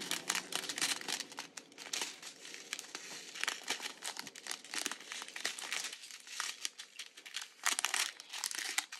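Strips of small clear plastic zip bags of diamond painting drills crinkling as they are handled and shuffled through. The crackling eases a little about six seconds in and picks up again near the end.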